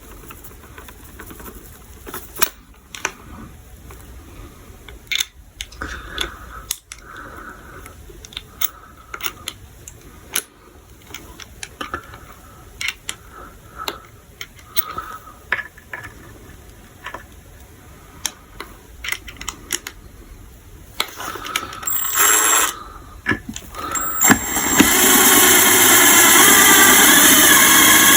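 Small metal clicks and taps as a screw extractor is worked on a stripped screw, then near the end a power tool starts up and runs loudly and steadily while it cuts into the screw.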